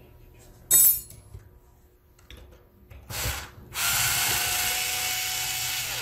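Cordless screwdriver running steadily for about two seconds near the end, backing a screw out of a laptop's base. A loud sharp click about a second in, and a brief burst of noise shortly before the screwdriver starts.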